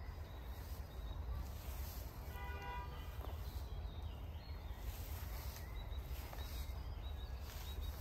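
Outdoor park ambience: a steady low rumble with faint bird chirps, and a single short pitched honk about two and a half seconds in.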